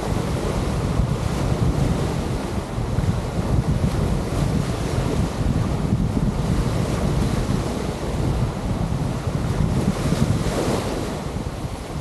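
Wind buffeting the microphone in a heavy, fluttering rumble over the steady wash of surf on the shore.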